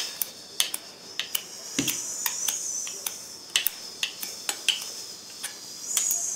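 Cutlery clinking against plates at a dinner table: irregular light clicks and taps, about three a second.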